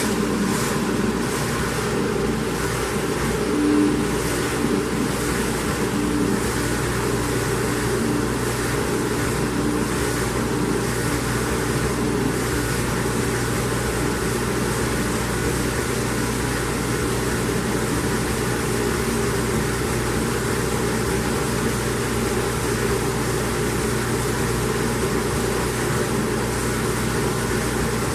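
Hobart LXiH commercial dishwasher running a cycle: a steady motor hum under a constant rushing wash noise.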